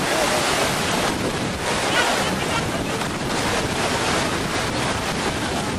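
Steady rushing noise of wind on the microphone and seawater at a boat ramp, with faint voices in the background.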